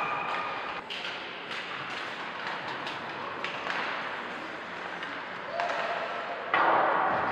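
Ice hockey game in a rink: scattered sharp clacks of sticks and puck over a steady hum of crowd noise, with spectators' voices rising about five and a half seconds in and swelling louder near the end.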